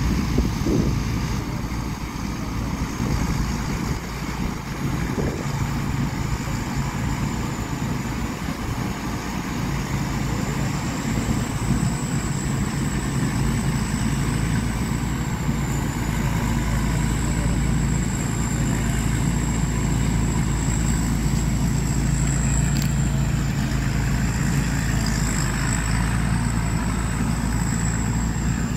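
Rice combine harvester running steadily in the distance while it works the paddy, a constant low engine rumble. Over it runs a thin high whine that drifts slightly in pitch.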